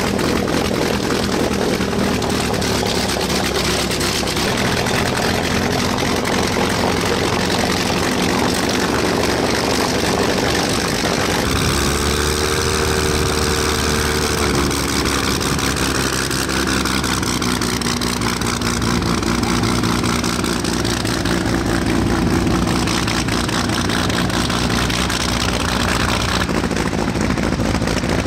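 Messerschmitt Bf 109 G-14's Daimler-Benz DB605 inverted V12 engine running with the propeller turning, idling and then taxiing. The engine note changes abruptly about eleven seconds in and again near the end.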